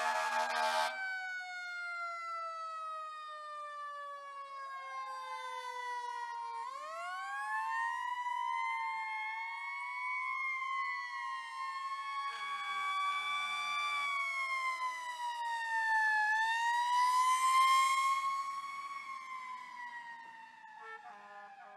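Fire truck sirens as the apparatus drive off. A horn blast cuts off about a second in, and one siren winds down in a long falling pitch. Then slow wailing sirens rise and fall several times, fading near the end.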